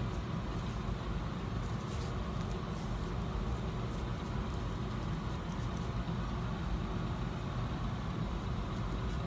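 Steady low rumbling background noise, even throughout, with no clear single event.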